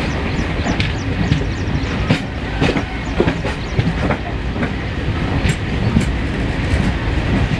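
Moving passenger train heard from aboard a coach: a steady rolling rumble with irregular clatter and clicks of the wheels over the rails.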